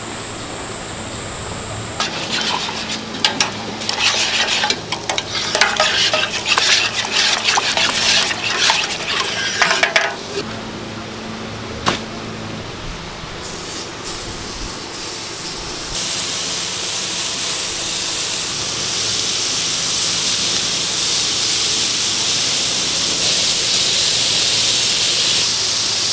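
Clattering knocks and handling noise, then, from a little past halfway, a steady sizzle of skewered chicken hearts frying on a hot flat-top griddle.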